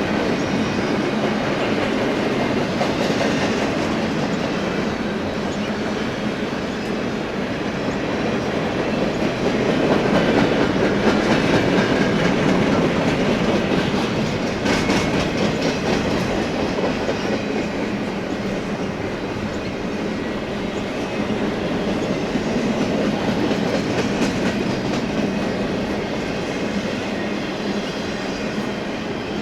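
BNSF freight train rolling steadily past, its wheels clicking over the rail joints.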